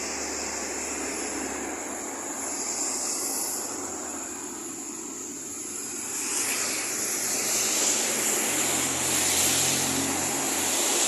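Traffic on a wet highway: a steady rushing of tyres and engines that fades over the first few seconds, then builds again toward the end as another vehicle approaches.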